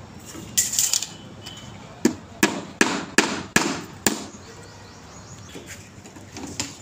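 A hammer driving a nail into a wooden shuttering board: six sharp strikes at about two or three a second, after a brief scraping noise about half a second in.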